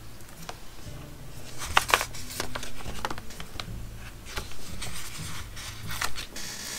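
Paper sticker sheets being handled and turned over: light crinkling and rustling with sharp clicks and snaps of paper, the loudest about two seconds in, over a faint low hum.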